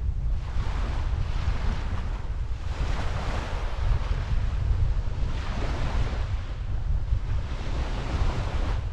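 Strong wind buffeting the microphone with a constant low rumble, over waves washing onto a sandy beach in swells that rise and fall every couple of seconds.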